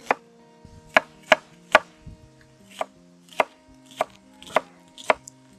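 Chef's knife dicing a red onion on a wooden cutting board: about nine sharp knocks of the blade striking the board, unevenly spaced.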